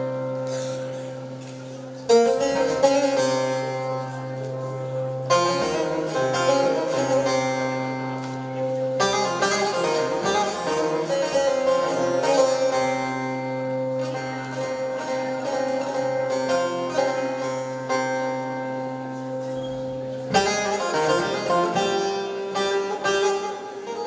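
Bağlama (long-necked Turkish saz) being plucked: an instrumental passage of Turkish folk melody over a steady low drone, with new flurries of notes about 2, 5, 9 and 20 seconds in.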